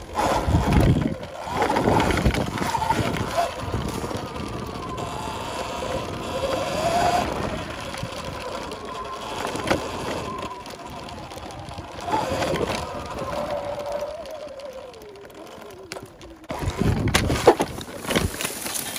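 Segway X260 electric dirt bike ridden over a dirt trail: the electric motor's whine rises and falls with speed over a steady noise of riding. There are louder low rumbles just after the start and again near the end, and a few sharp knocks as the bike goes over bumps.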